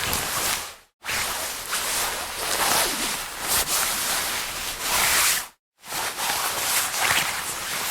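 Jacket fabric rustling and swishing as the jacket is handled and moved, in separate takes cut by short silences about a second in and again near six seconds.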